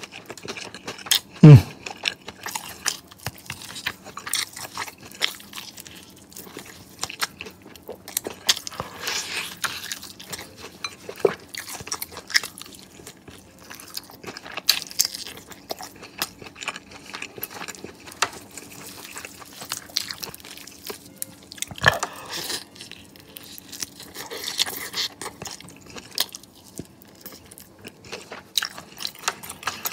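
Biting, crunching and chewing of sauced KFC crispy fried chicken wings, in irregular crunches and crackles. A sudden loud thump about a second and a half in.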